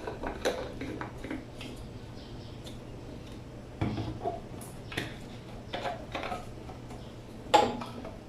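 Light knocks and clatters of hard objects being handled and set down, a few at a time, with the loudest knock near the end, over a faint steady low hum.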